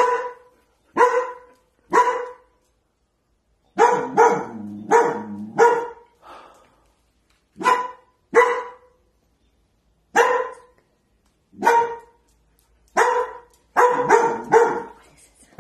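Long-coated German Shepherd puppy barking: sharp, repeated barks about one a second, with quicker runs of barks about four seconds in and near the end. It is alarm barking at an empty corner, which the owner reads as fear and protective mode.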